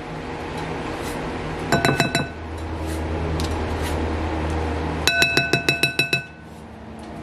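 A utensil tapping rapidly against a bowl, two quick runs of ringing clinks, about five taps and then about ten, as butter is knocked off a spoon into the bowl. A low steady hum runs underneath.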